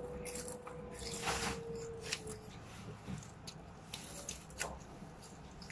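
Children biting and chewing crisp seaweed snack sheets: a handful of short, scattered crackly crunches, the strongest about a second in.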